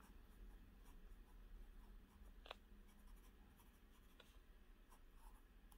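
Faint scratching of a fountain pen nib writing on paper, with a couple of light ticks.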